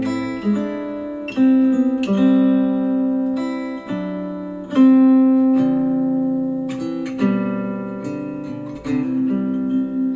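Acoustic guitar music played back through a JBL Flip 6 Bluetooth speaker: chords struck and left to ring, a new one every one to two seconds.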